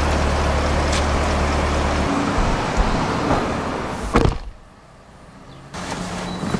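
A person getting into a car through its open door, with a sharp knock about four seconds in and another near the end as the door and seat are bumped. Before that comes a steady low hum that stops about two seconds in.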